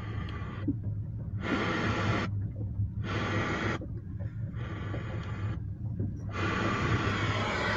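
Alpine car stereo's FM radio putting out hissy static that mutes for under a second each time a preset button is pressed, four times, then returns. A steady low hum runs underneath.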